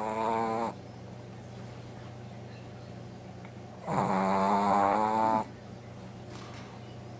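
Brussels Griffon dog snoring in her sleep. One pitched snore tails off just after the start, and a louder one of about a second and a half comes about four seconds in. Snoring like this is a trait of the short-nosed breed.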